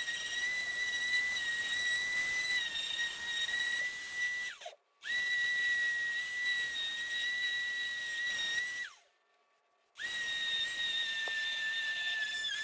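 High-speed power tool whining steadily while working Bondo body filler on a plastic dashboard. It runs in three spells of about four seconds, and each time it is let off its pitch falls quickly as it spins down, then it starts again.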